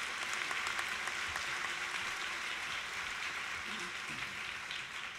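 Audience applauding: a steady, dense patter of many hands clapping.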